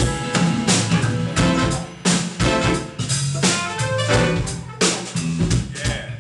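A band playing music with a drum kit beat, a low bass line and sustained chords.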